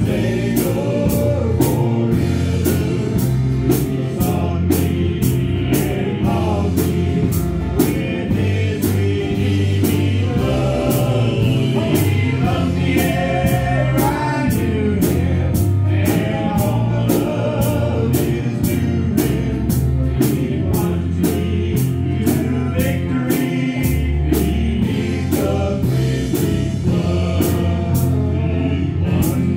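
Three men singing a gospel hymn together into microphones, over amplified accompaniment music with a steady beat.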